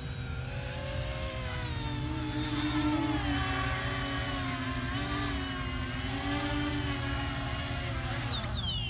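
E-flite Convergence VTOL model plane's electric motors and propellers whining as it flies in low and sets down, the pitch wavering up and down with throttle. Near the end the motors spin down with a quickly falling whine once it is on the grass. Wind rumbles on the microphone underneath.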